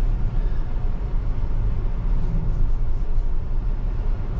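Steady road noise inside a Tesla electric car's cabin while driving on a wet road: a low rumble with a fainter hiss from the tyres on the wet pavement.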